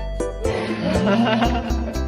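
Background music with a steady beat and bass notes. From about half a second in, a wavering, noisier sound joins over the music.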